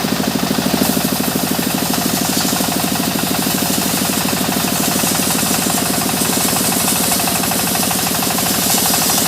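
Engine-driven sawmill saw running steadily, with a fast, even engine pulse under a high hiss that grows louder in the second half.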